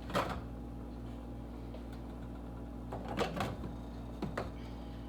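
A few short knocks and rattles of spice containers being picked up, opened and set down on a kitchen counter, over a steady low hum.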